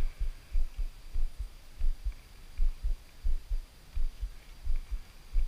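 Dull, low thumps about three times a second, with a faint steady high whine behind them.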